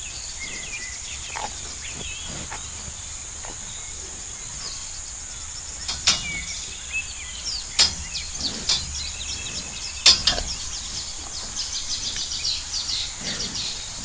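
Steady high insect drone with scattered bird chirps, and a series of sharp rips as cattle tear grass while grazing, the loudest about six, eight and ten seconds in.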